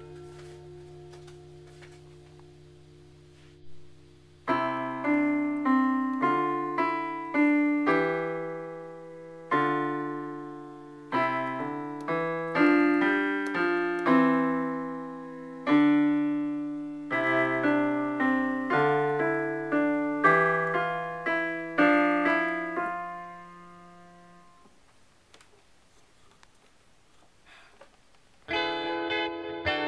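Casio digital piano played slowly, single notes and chords struck one after another and left to ring and fade. A held chord dies away over the first few seconds before the playing begins. The playing stops about three-quarters of the way through, and a new chord starts near the end.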